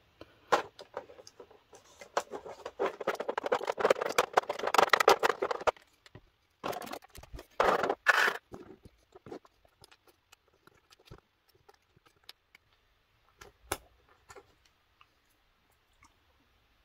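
Clear plastic blister trays and small plastic action-figure accessories being handled: a dense rattling and crinkling of plastic in the first half, then scattered small clicks and taps.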